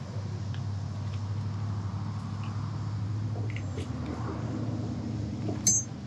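A vehicle engine idles with a steady low hum. Light clicks come from a ratchet strap's metal mechanism and hook being handled, and a single sharp metal click sounds near the end.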